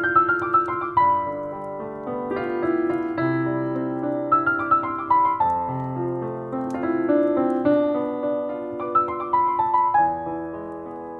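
Solo piano playing a slow, nostalgic melody over held low chords, with short runs of descending notes near the start, about halfway through and near the end.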